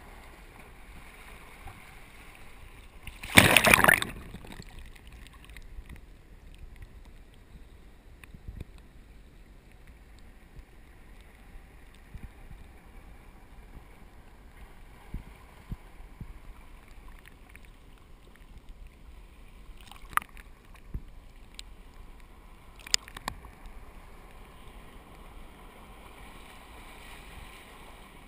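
Surf burbling and washing into a rocky tide pool. A wave splashes loudly and briefly about three and a half seconds in, and a few short sharp knocks come later on.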